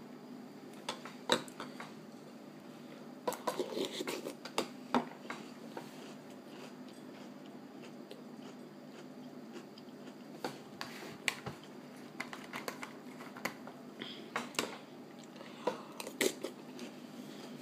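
A metal spoon clicks and scrapes against a ceramic cereal bowl, mixed with the crunching of ring cereal being chewed. The clicks are irregular and come in clusters.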